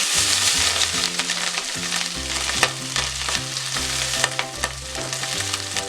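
Ghee sizzling in a hot pot as cooked rice is added, with the clicks and scrapes of the spoon against the pot.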